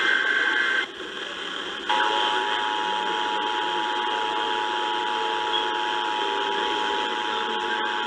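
Emergency Alert System broadcast over the radio: a SAME header data burst, a buzzy digital warble lasting under a second, then after a short gap the EAS two-tone attention signal (853 and 960 Hz sounded together) starts about two seconds in and holds steady, with radio hiss behind it. It announces a flash flood warning.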